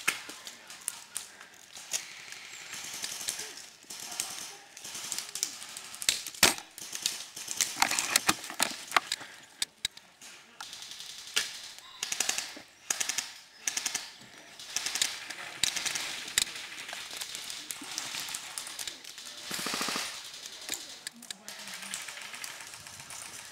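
Airsoft guns firing in repeated bursts of rapid shots, with single sharp cracks in between.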